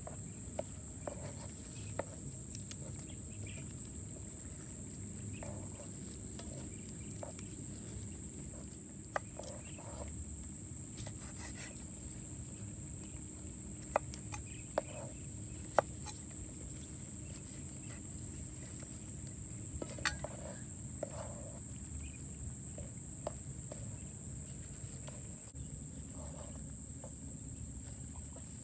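A steady, high insect drone over quiet outdoor background, with a few sharp knocks about halfway through as a cleaver chops cucumber.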